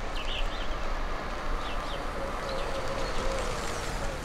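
Steady outdoor background noise with a few short bird chirps and a faint wavering hum.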